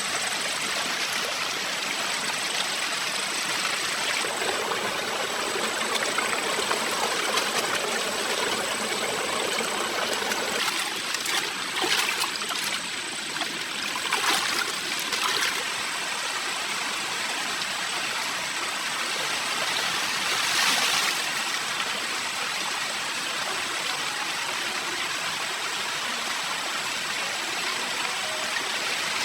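Forest stream water flowing and rushing steadily over rocks, with a few brief louder splashy patches near the middle.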